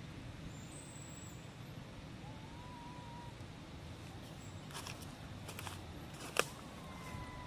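Outdoor ambience: a steady low rumble with a few faint thin whistles, and a handful of sharp clicks or taps in the second half, the loudest about a second before the end.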